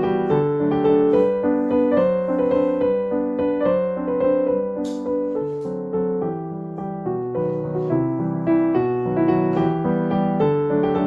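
Background piano music, a gentle melody of evenly paced notes over repeating chords.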